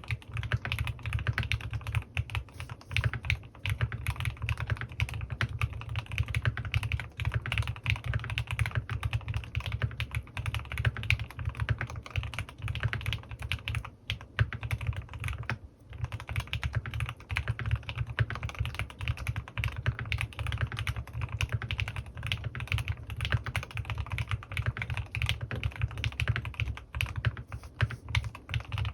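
Continuous fast typing on a CannonKeys Rekt1800 custom mechanical keyboard with lubed Gateron North Pole linear switches and PBTfans Resonance PBT keycaps, the keystrokes coming in a dense stream with a brief pause about halfway through.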